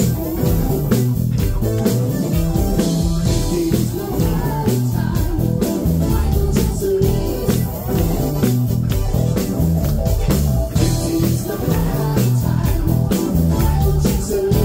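Live band playing loud, beat-driven pop-rock, with drums keeping a steady beat and a singer on microphone.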